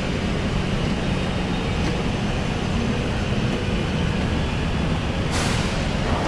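Steady low rumbling background of a large indoor hall, with a sudden hiss of air about five seconds in that lasts about a second.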